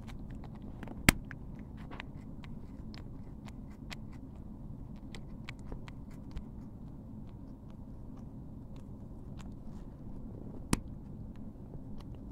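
Cat grooming itself close up, licking and nibbling at its fur with many small wet clicks. Two louder sharp clicks stand out, about a second in and near the end.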